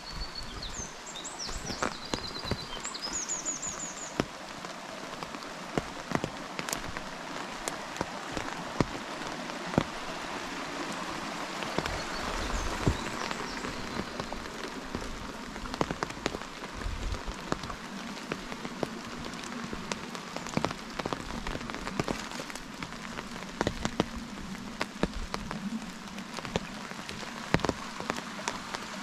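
Rain falling steadily, with sharp ticks of individual drops landing close by. A small bird gives a few quick high chirps in the first few seconds.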